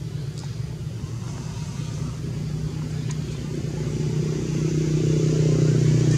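A steady low engine hum, like a motor vehicle running nearby, growing louder over the last couple of seconds.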